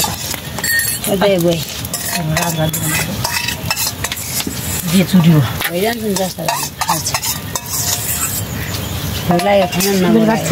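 Food being stirred in a pan: a spoon clicks and scrapes against the pan over a steady frying sizzle.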